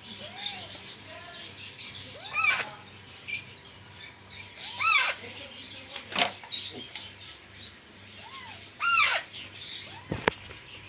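Alexandrine parrot chicks calling: short, arched squawks repeated every few seconds, three of them louder, with fainter calls in between. A sharp click sounds about six seconds in and another near the end.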